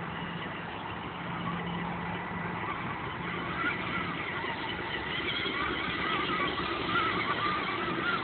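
Electric RC monster truck (Traxxas E-Maxx fitted with 775 motors) driving, its motors whining with a pitch that wavers up and down with the throttle, louder in the second half.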